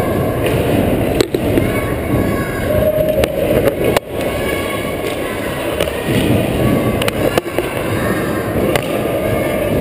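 Indoor ice-rink ambience during a youth hockey game: a steady rumbling noise with distant voices, and a few sharp clicks and knocks scattered through.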